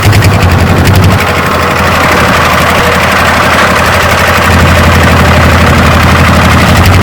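Kubota DC-70G combine harvester's diesel engine running steadily, getting a little louder about halfway through.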